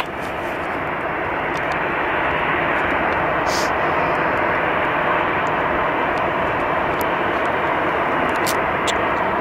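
Jet engine noise from a twin-engine airliner on low approach with gear down: a steady rushing roar that builds over the first couple of seconds, then holds.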